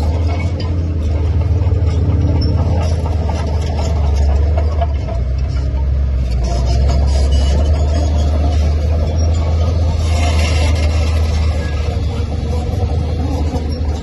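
Komatsu D41P bulldozer's diesel engine running steadily under load, a deep low drone, with a brief, harsher, higher-pitched noise about ten seconds in.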